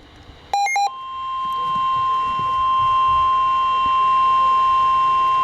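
A brief, rapid high-low beep, then the steady single-pitch NOAA Weather Radio 1050 Hz warning alarm tone. The tone starts about a second in and runs on without a break, the signal that a new warning is about to be read.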